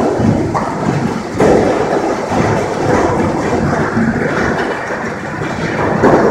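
Large hailstones pelting a concrete parking lot, a loud, dense din that swells suddenly about a second and a half in and again near the end.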